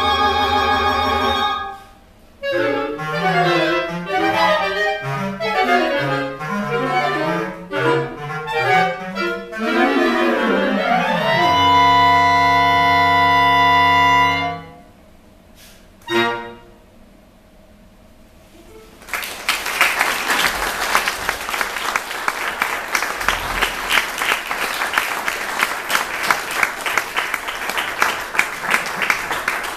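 Clarinet quartet with bass clarinet finishing a piece: a held chord, a quick run of interweaving notes, a long final chord and one short closing chord. After a brief pause the audience applauds through the last ten seconds.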